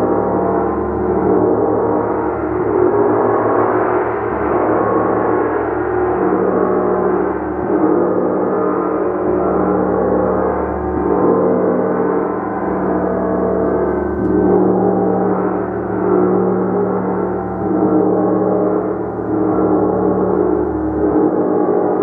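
Gong played continuously, a dense sustained wash of overlapping ringing tones that swells and ebbs about every two seconds.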